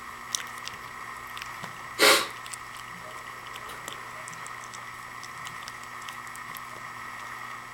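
Young puppies stir and are handled: faint scattered clicks and rustles over a steady hum. About two seconds in there is one short, loud burst of noise.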